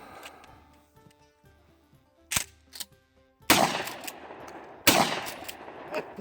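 Maverick 88 12-gauge pump-action shotgun firing two loud shots about a second and a half apart, each with a long echoing tail, after two short sharp clicks.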